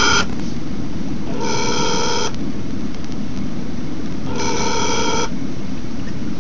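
Phone ringing: a pitched electronic ring lasting about a second, repeating about every three seconds, heard three times, over a steady low hiss.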